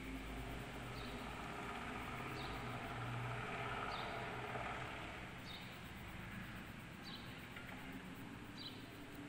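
A colour pencil scratching on paper as a picture is shaded in, loudest in the middle. A short, high, falling chirp repeats about every second and a half.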